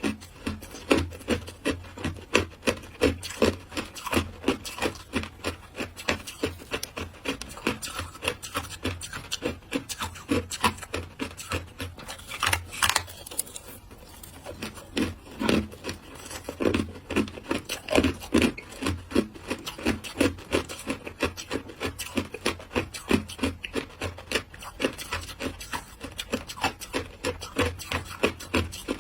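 Matcha-flavoured shaved ice being chewed close to the microphone, with rapid crisp crunches following one another several times a second.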